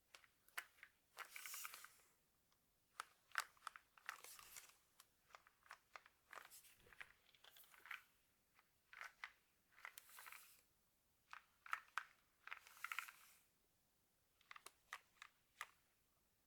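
Scattered sharp plastic clicks in small clusters, broken by a few short rustling swells, from hands working on a mechanical keyboard and its parts.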